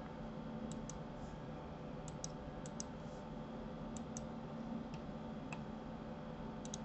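Scattered light clicks of a computer mouse and keyboard, about a dozen, several in quick pairs, over a faint steady hum.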